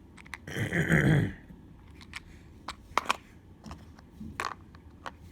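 Handling of a plastic drill-bit case and its bits: scattered small clicks and taps, with one short, loud rushing burst about a second in.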